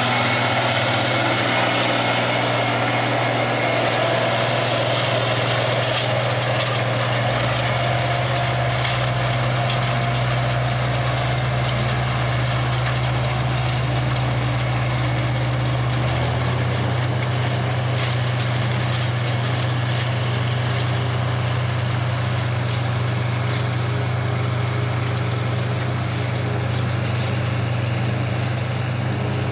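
International Harvester four-wheel-drive tractor's turbocharged diesel engine running steadily while it pulls a chisel plow.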